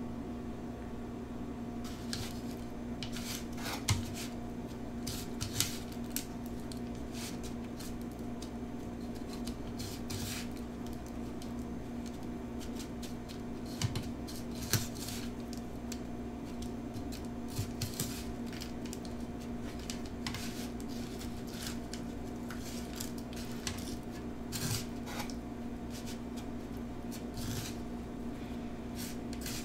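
Fingers pressing and turning a battered pickle spear in crushed Hot Cheeto crumbs in a glass bowl: scattered crisp crunching and scraping, with occasional sharp clicks against the glass, over a steady low hum.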